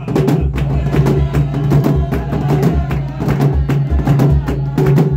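Several large wooden barrel drums beaten in a steady, driving rhythm, with hand claps on the beat.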